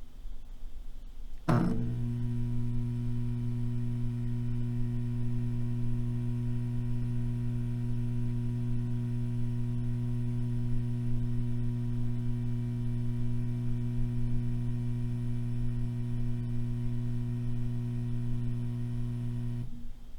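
Fluorescent light: a click about a second and a half in, then the tube's steady electrical hum, which cuts off abruptly just before the end.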